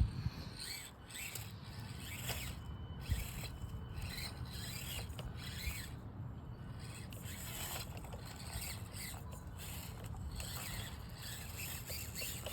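Axial SCX24 1/24-scale RC crawler's small electric motor and gears whining in short bursts of throttle, rising and falling in pitch, with rubbing and scraping as it crawls over rock. The bursts stop briefly a few times.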